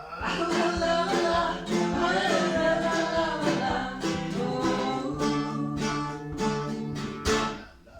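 Acoustic plucked-string music with a mandolin, notes plucked and strummed in a steady tune. It breaks off just before the end.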